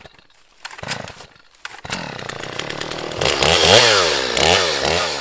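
Gas chainsaw being pull-started: a couple of short pulls and sputters, then the engine catches about two seconds in. It is revved up and down several times in quick succession.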